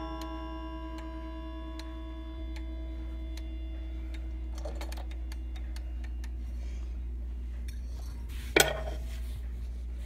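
Franz Hermle clock movement ticking about every second while its bim-bam chime rods ring on and fade out after striking. About eight and a half seconds in comes a sharp metallic clank with a short ring, as the clock's parts are handled.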